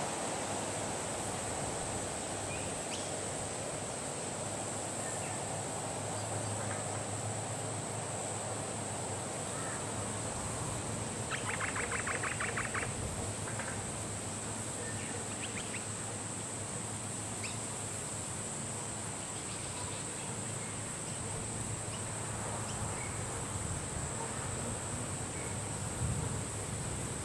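Birds calling: scattered short chirps and, about eleven seconds in, one rapid chattering call lasting about a second and a half, over a steady high-pitched hiss.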